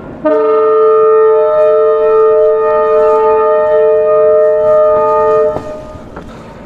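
Locomotive air horn sounding one long, loud blast of several notes at once for about five seconds, then cutting off sharply. A moving train's running noise and wind rush remain after it.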